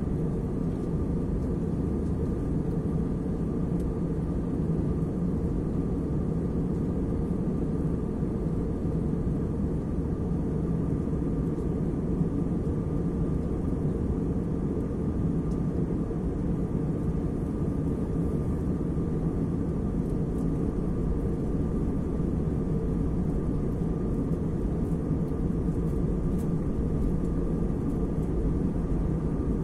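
Steady cabin noise of a jet airliner in cruise, heard from inside the cabin: an even, deep rumble of engines and airflow with a faint steady hum above it.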